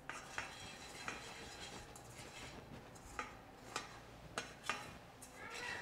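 A spoon stirring in a stainless steel frying pan, scraping and clinking against the metal in scattered light strikes, as shrimp paste is dry-toasted over a low flame and stirred to keep it from burning.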